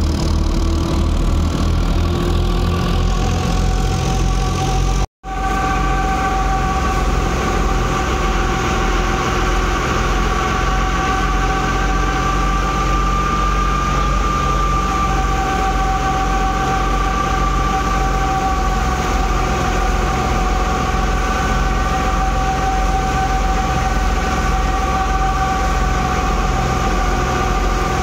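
Wheat thresher running steadily as wheat stalks are fed into it: a steady mechanical whine over a low throb. The sound cuts out for an instant about five seconds in.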